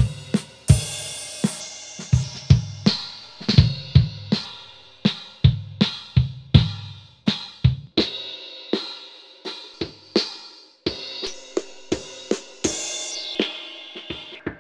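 Mono drum-kit recording (kick, snare, hi-hat, cymbals) playing through the AML ezHLF3-500 passive high/low-pass filter while its knobs are turned. About eight seconds in, the kick drum's deep low end drops away and the kit turns thin, as a high-pass cutoff is raised. Near the end, a cymbal's bright wash slides down in pitch.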